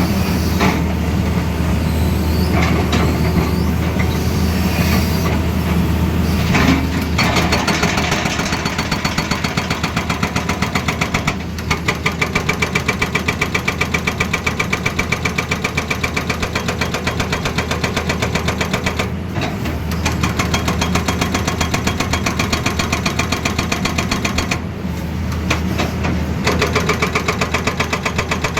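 Excavator-mounted hydraulic breaker hammering in a rapid, even train of blows over the diesel engine's running, stopping briefly three times between bouts.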